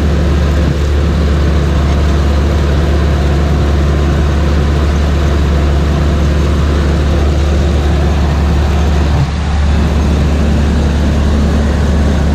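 John Deere 3300 combine running steadily: a loud, even engine drone with a strong low hum, dipping briefly about nine seconds in.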